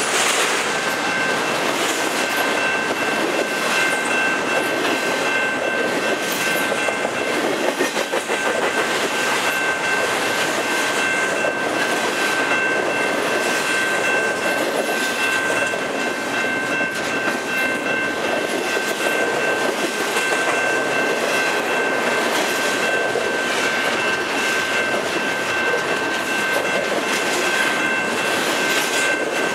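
Double-stack intermodal freight train rolling past close by, its container flatcars rumbling and clattering over the rail joints, with a steady high-pitched tone running above the rumble.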